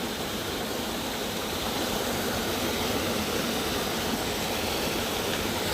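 Waterfall rushing as a steady, even roar of falling water with no breaks.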